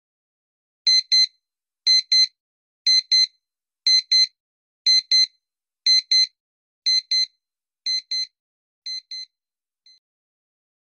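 Electronic countdown-timer beeps, a quick double beep once a second like a digital alarm clock, about nine pairs that fade steadily quieter, ending in one faint single beep.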